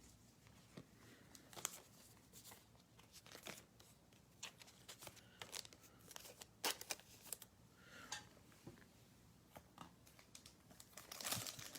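Faint handling of trading cards, scattered light clicks and rustles, then near the end the crinkling and tearing of a card pack's wrapper as it is opened.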